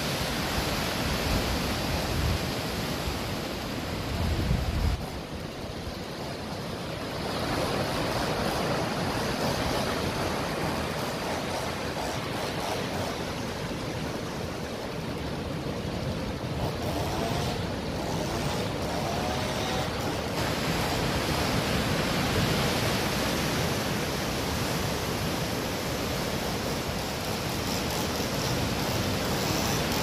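Sea waves breaking and washing over rocks and a pebble shore: a continuous surf noise, with a heavier low rumble that drops away about five seconds in.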